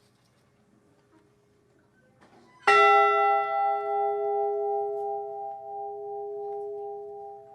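A single strike of a large ship's bell about two and a half seconds in, ringing on and slowly dying away with a slow pulsing beat in its hum. It is tolled once in memory of one lost crew member.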